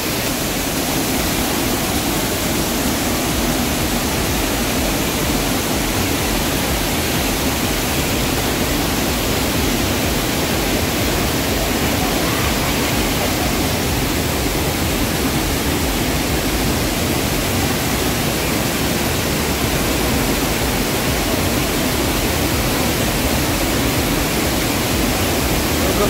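Loud, steady rush of falling water from a waterfall.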